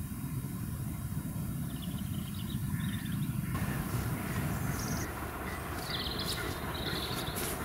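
Distant LMS Black 5 two-cylinder steam locomotive working hard with a train: a low, steady rumble. Small birds chirp over it in short bursts, and the sound changes abruptly about three and a half seconds in.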